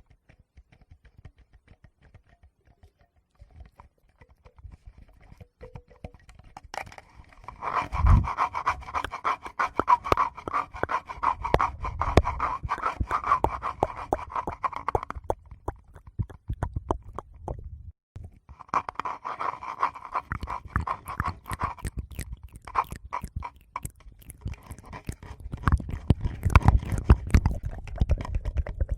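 Close-miked ASMR sounds: dense crackling and clicking in two long stretches, then soft low thumps and rubbing near the end, from fingers touching a Tascam recorder's microphones and from mouth sounds.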